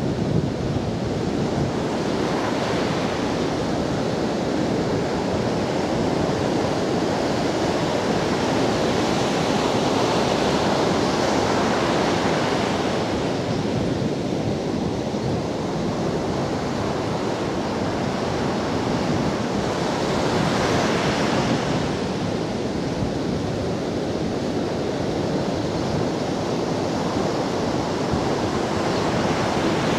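Ocean surf breaking and washing up a sandy beach, a continuous rushing that swells as waves break, with wind on the microphone.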